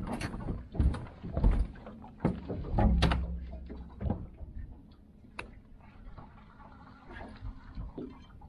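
Irregular knocks and clunks on a fishing boat as someone moves about the deck, loudest in the first half and sparser later, with a short low hum about three seconds in.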